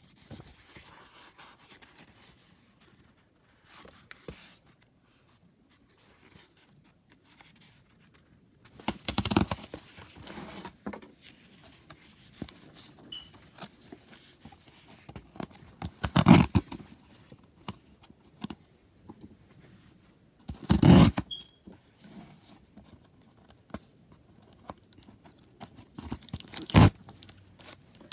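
Hands handling and unwrapping the packaging of a tarot deck set: low rustling and scraping, with four louder tearing or scraping bursts spread through.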